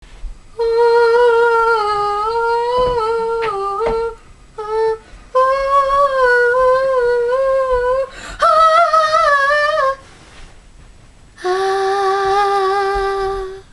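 A boy humming a wordless tune in several gliding phrases with short breaks, ending on one long held note.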